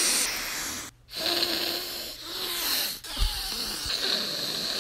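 A person sniffing in long, noisy breaths through the nose, as if deeply smelling something. One breath ends about a second in and a second long sniff follows. A third, steadier sniff starts about three seconds in.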